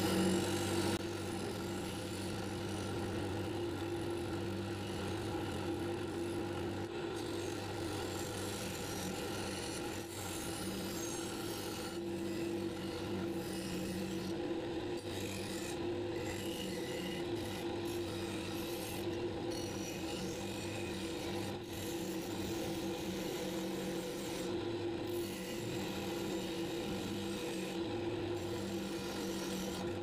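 Bench grinder fitted with a wire wheel, running with a steady motor hum while a rusty steel billhook blade is pressed against it. The wire bristles scrub rust off the blade in a continuous scratchy hiss, with brief breaks when the blade lifts off the wheel.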